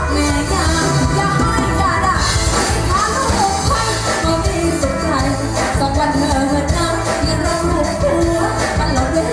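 Live band playing a Thai song: a woman sings into a microphone over keyboard, drums and congas, with a steady beat.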